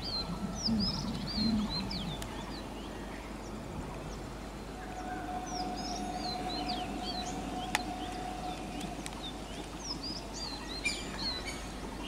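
Small birds chirping repeatedly over a steady low rumble of background noise, with a faint steady hum for a few seconds midway and one sharp click.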